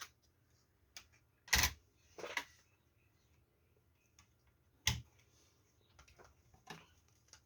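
Scattered clicks and light knocks of a replacement power supply board being handled and seated in a Samsung One Connect box, the loudest about a second and a half in and another near five seconds.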